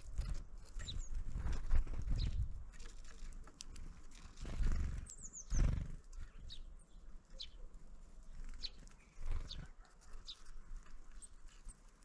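Small birds at a feeder: scattered short, high chirps and call notes, with a quick run of falling notes about five seconds in. Low thuds and rustles close to the microphone are the loudest sounds, strongest in the first half.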